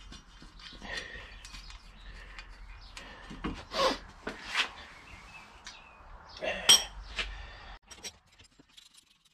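Metal tools and parts clinking and clattering as they are handled, with two louder metallic clanks about four and seven seconds in; the second rings briefly.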